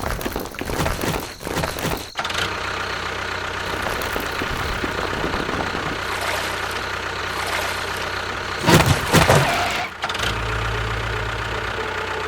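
Small engine running steadily, with abrupt changes in its sound about two seconds in and near ten seconds, and a brief louder burst around nine seconds.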